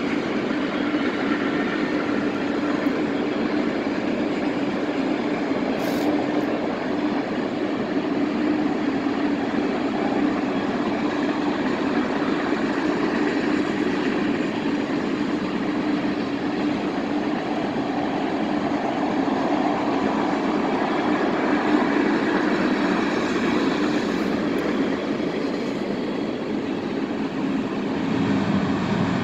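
Freight train of tank cars rolling past, a steady noise of wheels on rail with a constant low hum.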